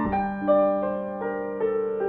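Background piano music: a slow run of single notes, a new one about every half second, each ringing on as it fades.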